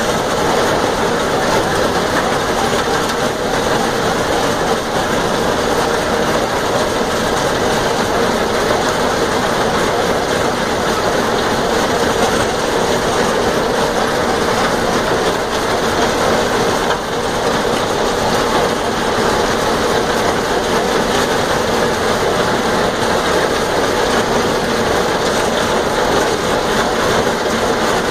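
New Holland 489 haybine mowing thick orchard grass at speed behind a tractor: cutter, reel and conditioner rolls running together with the tractor engine in a steady, even mechanical noise. A properly set-up haybine running as it should under a heavy crop.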